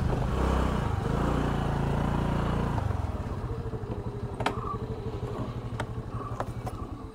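Motorcycle engine running under way, then dropping about three seconds in to a quieter, pulsing idle, with a few sharp clicks.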